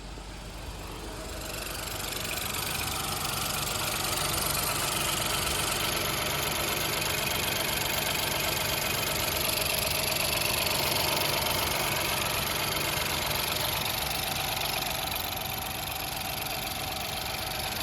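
Ford Fiesta 1.0 EcoBoost turbocharged three-cylinder engine running with a knocking noise, put down to improper maintenance. The sound grows louder over the first two seconds, then holds steady.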